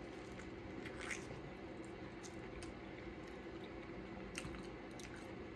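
Faint wet squishing and chewing of a person eating a sauce-covered seafood boil, with a few soft clicks and smacks.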